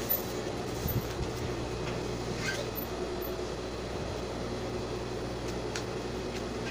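Steady electric motor hum, with a few faint clicks and rustles of fabric being handled.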